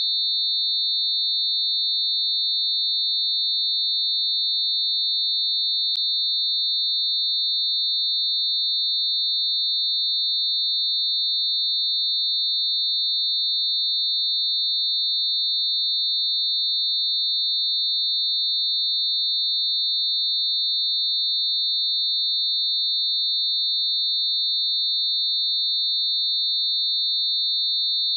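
Synthetic mix of several closely spaced steady sine tones around 4,000 Hz, a constant high-pitched electronic tone with no change in pitch or level. A faint click about six seconds in.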